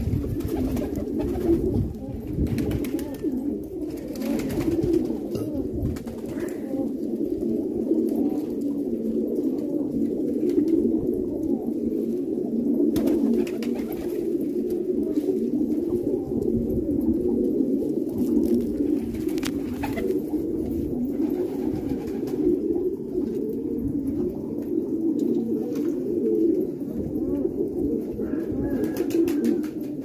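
A flock of fancy domestic pigeons cooing, many coos overlapping into one steady chorus, with a few short clicks.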